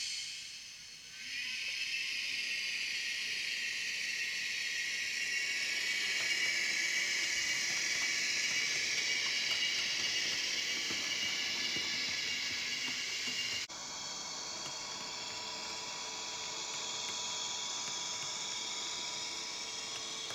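A sound decoder in a Bemo model RhB electric locomotive playing locomotive sounds through its small speaker while the model trains run. It gives a hiss that fades, then from about a second in a steady hissing with several whining tones. About two-thirds through it changes abruptly to a quieter hiss with a steady hum.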